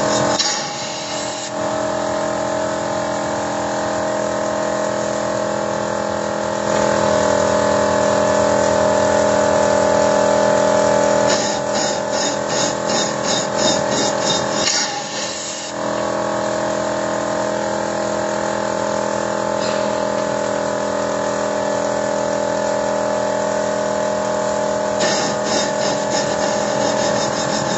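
Steady mechanical hum with a whine from machinery in a car's engine bay during engine carbon cleaning. It grows louder for a few seconds near the middle, with a fast high ticking over it for a while after that and again near the end.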